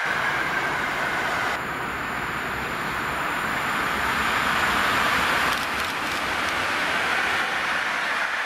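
Passenger train hauled by an EP08 electric locomotive running past on the line, a steady rumble of wheels on the rails that swells as the coaches come close.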